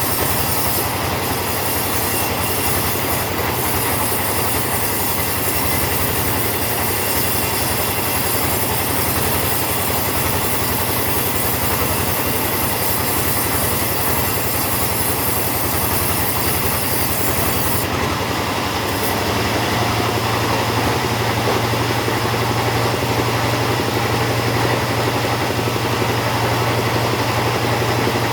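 Chainsaw running steadily under load as it cuts teak lengthwise. About two-thirds of the way through, the high hiss of the cut drops away and a low engine hum grows louder.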